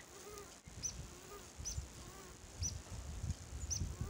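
Faint animal calls repeating about once a second: a short low call alternating with a very high, brief chirp.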